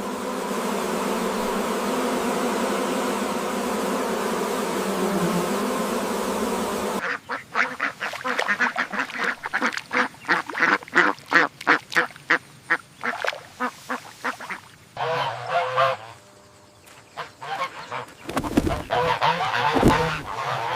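Ducks quacking in a quick run of short calls, several a second. They follow a steady, dense sound that cuts off abruptly about seven seconds in.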